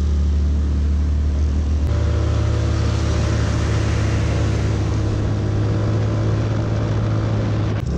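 A Yamaha Mio Sporty scooter's small single-cylinder four-stroke engine runs under load on an uphill ride, with road and wind noise over it. About two seconds in, the engine note steps up in pitch and holds.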